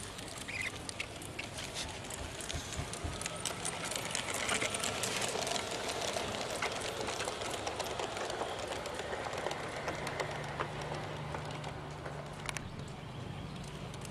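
LGB G-scale garden railway trains running on brass track: small wheels clicking over rail joints and electric gear motors whirring. The sound is loudest as a train passes close about halfway through, and a steadier low hum comes in near the end.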